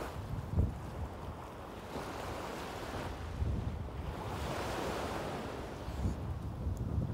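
Small sea waves breaking on a sandy shore and washing up the beach, with one surge of hiss swelling about halfway through. Wind rumbles on the microphone.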